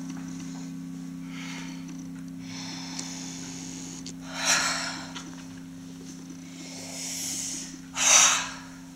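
A woman's loud, breathy bursts of breath, heavy breaths or gasps with her mouth open, one about halfway through and the loudest near the end, over a steady low hum.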